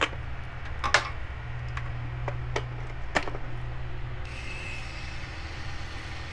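A few sharp clicks and taps of handling in the first three seconds, then about four seconds in a small electric motor in a handheld glue-cleaning tool starts up with a thin, steady whine over a low hum.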